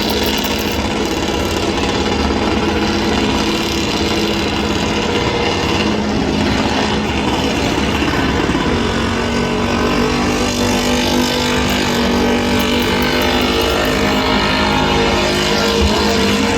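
Vehicle engine held at high, steady revs during a burnout, its pitch stepping slightly about eight and a half seconds in.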